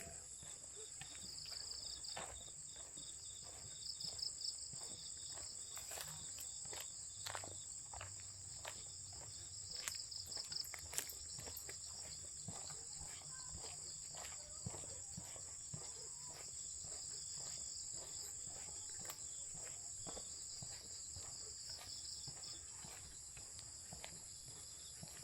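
Insects calling at dusk: a steady high-pitched drone, with a second insect chirping in pulses that swell and fade every couple of seconds. Scattered footsteps on a path click and scuff through it.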